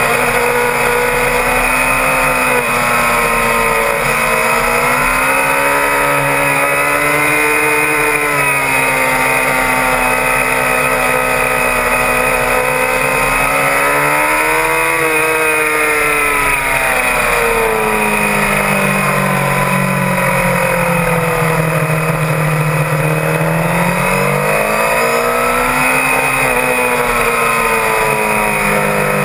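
Suzuki GSX-R750 K6 inline-four sport bike engine heard from on board at racing speed. Its pitch climbs and drops again and again as the rider accelerates, shifts and backs off through the corners.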